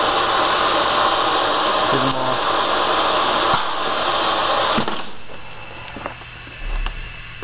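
Bag-in-Box vacuum sealer's 3/4 horsepower vacuum pump drawing the air out of a box-liner bag through its nozzle: a loud, steady rushing noise that cuts off about five seconds in. A few mechanical clicks and a brief low hum follow as the nozzle retracts.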